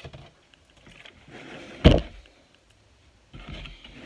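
Kitchen handling sounds: a single loud knock about two seconds in, as of something set down hard on the counter, with softer rustling and clatter around it.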